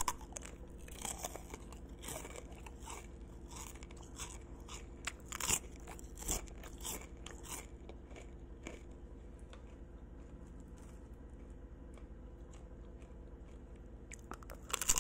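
Caramel popcorn being bitten and chewed, giving crisp, sugary crunches. The loudest crunches come in the first seven seconds, then the chewing becomes sparser and softer.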